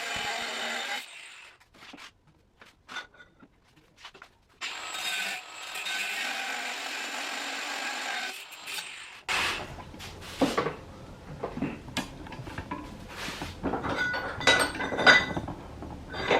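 Power tool cutting the sharp corners off a metal plate to round them, in two steady runs of a few seconds each with a short pause between. Near the end come a series of sharp knocks and clanks.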